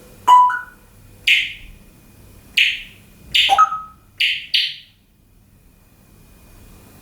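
African grey parrot making a run of about six short, high, beeping alarm-like calls, some in quick pairs, over the first five seconds.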